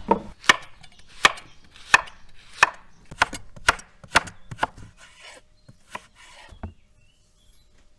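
Kitchen knife slicing carrot into long strips on a wooden cutting board: a sharp knock each time the blade hits the board, about two a second, thinning out after about five seconds and stopping shortly before the end.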